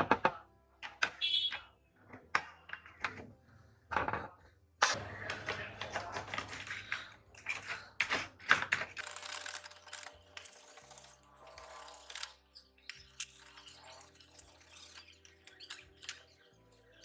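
Workshop hand-work on rusty metal scissors: a series of sharp clicks and knocks, then about five seconds in, stretches of rasping, scraping noise.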